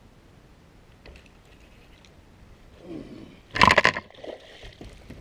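A sudden loud burst of noise about three and a half seconds in as a bass is hooked, followed by a steady whirr of the fishing reel as the fish is fought.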